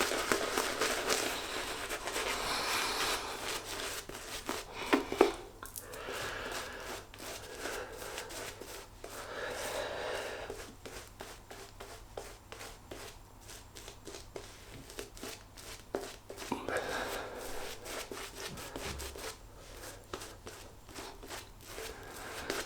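Synthetic shaving brush working shaving cream into a lather: soft wet rubbing and swishing in bursts, with a sharp knock about five seconds in.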